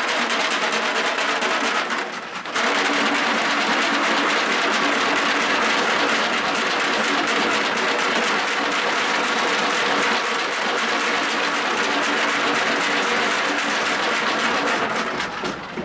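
Spectators cheering and clapping, loud and sustained, with a brief drop about two seconds in and fading near the end.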